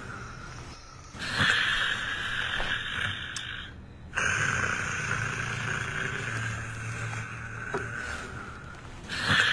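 A person snoring: long, noisy, rasping breaths, each lasting a few seconds, with short pauses between them.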